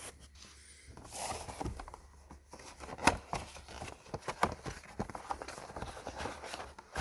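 Irregular clicks and knocks of parts being handled, the loudest a sharp knock about three seconds in.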